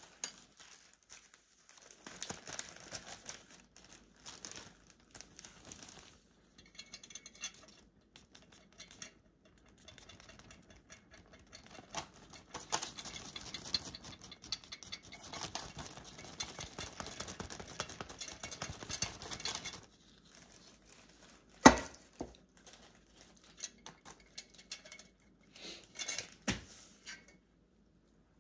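Squeeze-handle flour sifter dusting powdered sweetener: soft, uneven scratchy rasping of the sifter's wire blades against the mesh, in stretches, with a little rustle of a plastic bag. One sharp knock a little past the middle stands out above the rest, and a few lighter taps come near the end.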